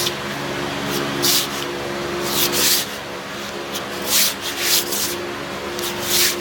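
A handful of short hissing, scraping strokes, five or so, over a steady multi-tone hum.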